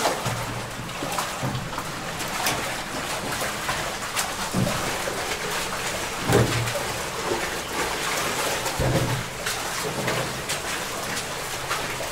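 Shallow water splashing and trickling inside a culvert as a canoe is walked through it, echoing in the tunnel, with scattered knocks and a few low thumps.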